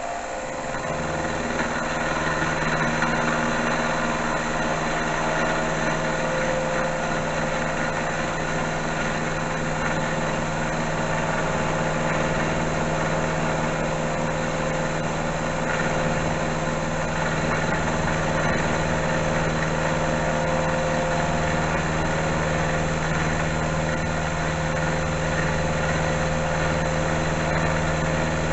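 Small metal lathe coming up to speed in the first second, then running steadily with a constant hum and whine while taking a fine cut on a steel bar.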